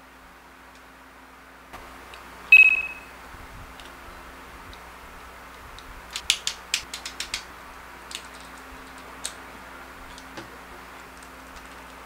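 Die-cast and plastic toy robot figure's joints clicking as it is posed: a quick run of about eight sharp clicks, then a few single clicks. About two and a half seconds in, a single bright ringing ping, the loudest sound, fades out over about half a second.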